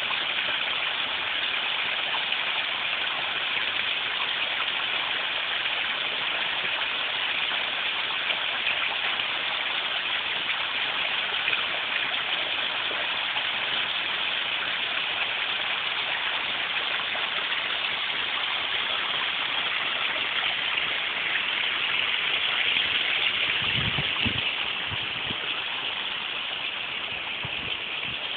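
Small waterfall pouring over rocks: a steady rushing and splashing of falling water. Near the end there are a few low thumps, and the rushing grows a little quieter.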